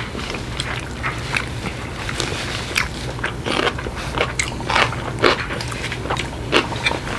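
Close-up mouth sounds of a person eating sushi: wet chewing and lip-smacking in short irregular clicks. A steady low hum runs underneath.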